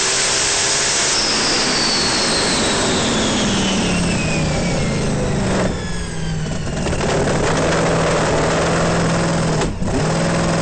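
Loud, dense drag-racing engine noise with a whine that falls steadily in pitch over the first few seconds and a steady low hum underneath. It dips about halfway through and breaks off briefly near the end.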